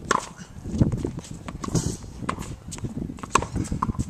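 Tennis rally on a hard court: a string of short knocks from racket strings hitting the ball and the ball bouncing on the court.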